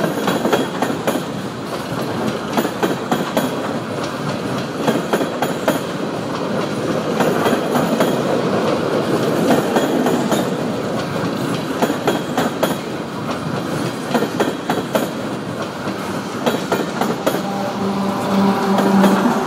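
Empty coal cars of a long freight train rolling past close by, wheels clicking over the rail joints over a steady rumble. Near the end the rear-end GE ES44AC diesel locomotive draws up, and its engine adds a steady hum.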